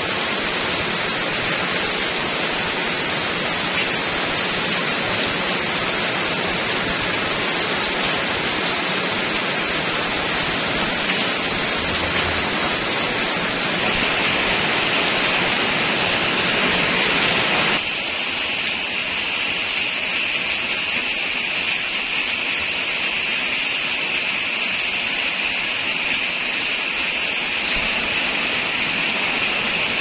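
Heavy rain falling, a steady dense hiss. About two-thirds of the way through it drops slightly in level and turns duller.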